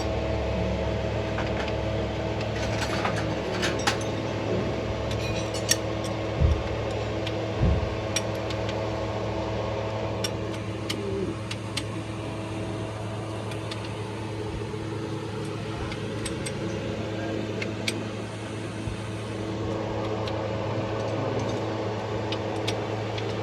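A steady mechanical hum runs throughout, with scattered sharp clinks and a couple of dull knocks from spanners and other hand tools being used on the car.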